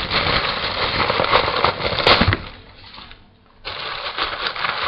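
Crisp crackling and rustling as a head of lettuce is handled and leaves are pulled off, dying away about halfway through and starting again near the end.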